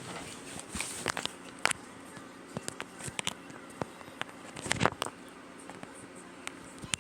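Scattered small clicks and knocks, the loudest a short cluster about five seconds in.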